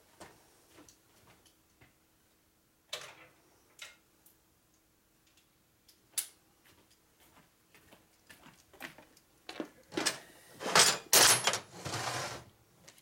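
Workshop handling sounds of hand tools and transmission parts: scattered single knocks and clicks, then a louder stretch of clattering from about ten seconds in to near the end.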